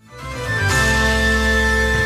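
News-programme ident theme music for an international news segment: sustained synth chords with a deep bass, swelling in over the first half second.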